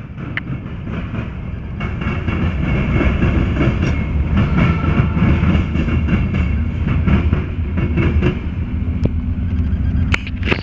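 Freight train rolling past: a steady rumble of the cars with the clickety-clack of wheels striking rail joints again and again.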